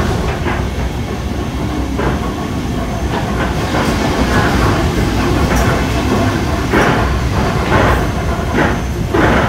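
Camshaft-controlled electric train running on the track: a steady rumble with wheels clattering over rail joints, the clacks coming more often in the second half.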